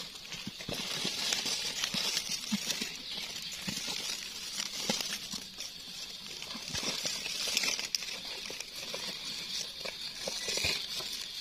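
Dry leaf litter rustling and crackling as hands push through it and dig mushrooms out of the forest floor, with many small irregular crackles and clicks. A steady high hiss sits behind.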